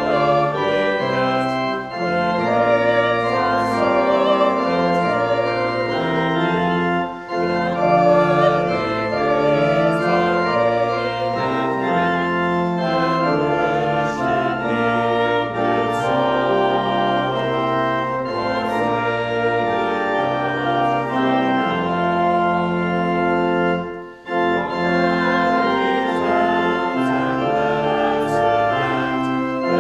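Church pipe organ playing a hymn in slow, sustained chords, with two brief breaks between phrases.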